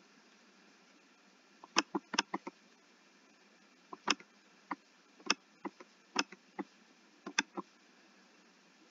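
Computer mouse clicking repeatedly, about eighteen sharp clicks in small quick clusters starting about two seconds in.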